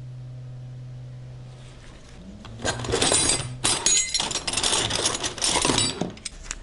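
Metal wrenches and ratchets clinking and clattering against each other as they are rummaged through and set down. The clatter starts about two and a half seconds in, after a steady low hum.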